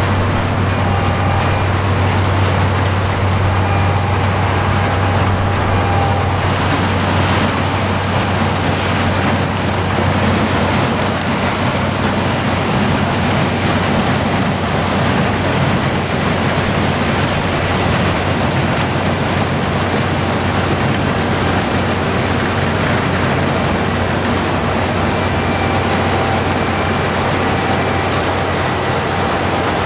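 International Harvester 1460 combine running in standing corn: a steady, dense mechanical din from its engine, axial-flow rotor and corn head. The low engine hum is strongest at first and weakens about ten seconds in, with faint whines coming and going above it.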